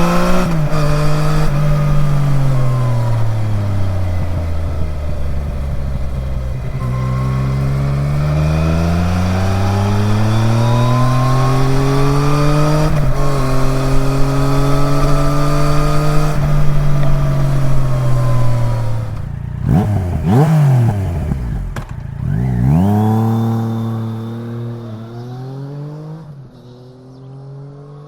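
Yamaha Niken GT's 847 cc inline-three engine through an Akrapovic exhaust that keeps its catalytic converter, accelerating through the gears with the pitch climbing and then dropping at each shift. About two-thirds of the way through the revs fall and jump sharply, then the engine pulls away again, and the sound fades out near the end.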